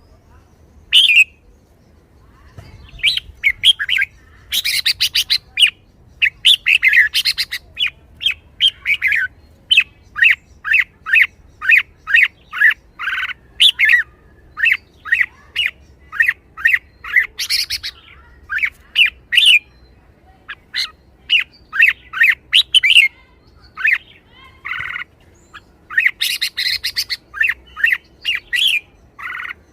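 Red-whiskered bulbul calling in a lively run of short, sharp 'rik-rik-rik' notes, about two a second, broken now and then by harsher, buzzier bursts. These are the calls of an excited, spirited bird.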